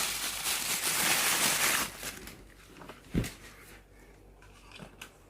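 Plastic packaging rustling as a new camera is unwrapped and handled, stopping about two seconds in; then a few light clicks and one dull thump from the camera being handled.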